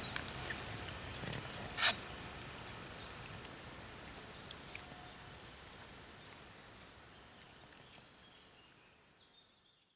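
Outdoor ambience with faint, short high bird calls, broken by one sharp click about two seconds in, fading out steadily to silence.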